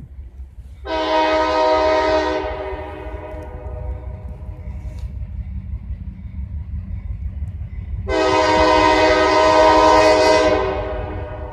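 Diesel locomotive air horn sounding for a grade crossing: two long chord blasts, the first about a second in and the second, a little longer, about eight seconds in, over a steady low rumble.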